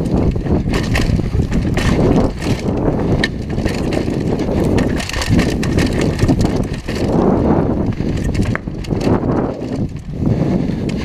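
Downhill mountain bike ridden fast over a rooty dirt trail, heard from a camera mounted on the bike: tyres crunching over dirt and roots, and the bike rattling with many short knocks over the bumps, over a steady rush of wind on the microphone.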